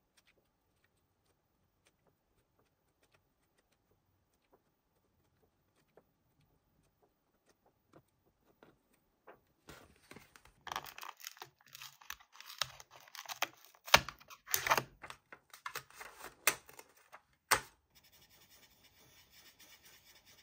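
Paper handling: about halfway in, loud irregular rustling and tearing bursts with a few sharp clicks, as a page is worked loose. Near the end, a fainter steady scratching of an ImagineInk marker tip rubbing on paper as a page is coloured.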